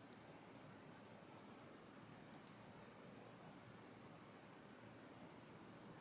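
Faint, sharp clicks scattered irregularly, about eight or nine in all, the loudest about two and a half seconds in: small parts and tools of a Kaba Gemini lock being handled while it is taken apart.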